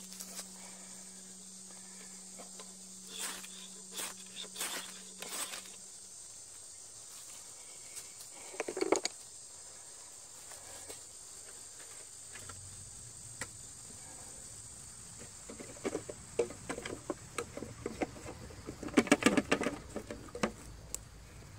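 Fatwood sticks and tinder on a cast-iron grill plate catching fire, with a burst of sound about nine seconds in as it lights and a dense run of crackles and clicks over the last few seconds. A steady high insect drone runs underneath, with a low steady hum in the first six seconds.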